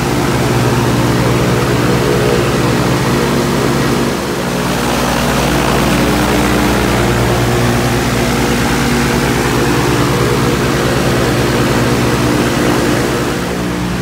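Light aircraft's engine and propeller running steadily on the ground, heard close up, with a shift in its hum about four seconds in.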